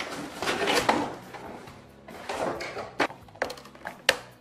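Cardboard shipping box being opened by hand: the cardboard flaps and tape scrape and rustle in two stretches, followed by a few short sharp knocks near the end.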